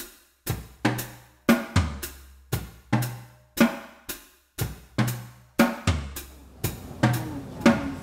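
Background music: a steady drum kit beat with bass drum, snare and cymbal strokes about three times a second.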